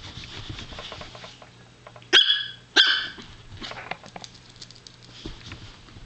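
Chihuahua puppy giving two sharp, high-pitched play barks in quick succession about two seconds in, the second slightly longer.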